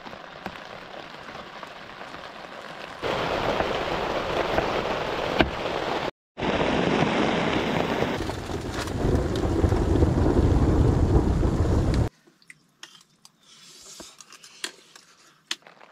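Heavy rain falling steadily, with a deep rumble of thunder from about nine to twelve seconds in. The sound changes abruptly several times, with a brief dropout about six seconds in. After about twelve seconds it falls to a much quieter patter of scattered drops.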